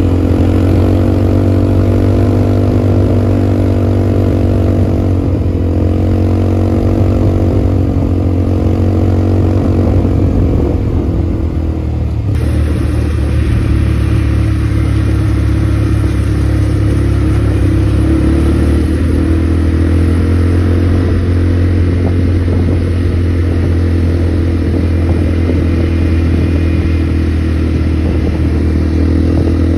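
ATV engine running on the move, loud and steady, its pitch rising and falling a little with the throttle, over a heavy low rumble. The sound changes abruptly a little under halfway through.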